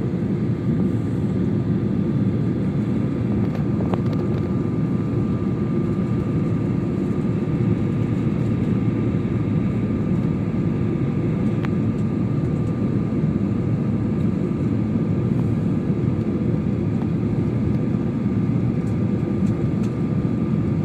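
Steady low rush of engine and airflow noise heard inside a jet airliner's cabin as it descends toward landing, with a faint steady high tone on top.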